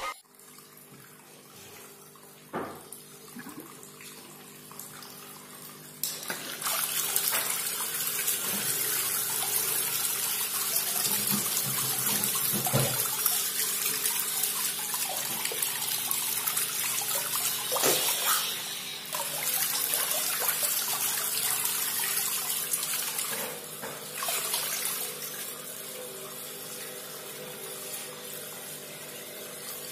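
Water splashing steadily as a bell-shaped sheet from a homemade fountain nozzle, pumped by a 775 DC motor, falls back onto a pond's surface. The splashing starts about six seconds in, after a single knock.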